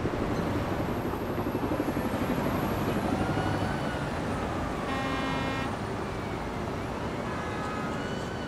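City street traffic: a steady low rumble of engines and road noise, with car horns honking over it, one longer honk about five seconds in and a shorter one near the end.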